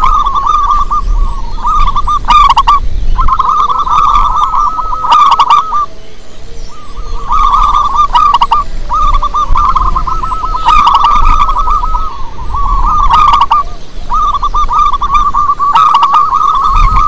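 Zebra dove cooing: phrase after phrase of rapid, trilling coo notes, each phrase one to two seconds long with short breaks between and a longer pause near the middle.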